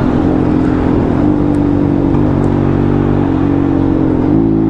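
Yamaha FZ-S V1 single-cylinder engine running loudly through an exhaust with its dB killer partly cut out. The engine speed lifts slightly a few times and steps up near the end.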